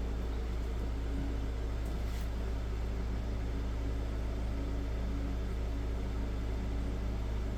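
A steady low hum with faint background noise and no distinct events.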